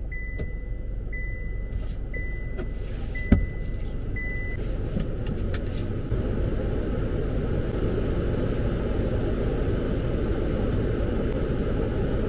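A car's warning chime beeping about once a second, five or six times, stopping about four and a half seconds in, over the steady low rumble of the car idling. A sharp knock about three seconds in; the rumble gets a little louder about six seconds in.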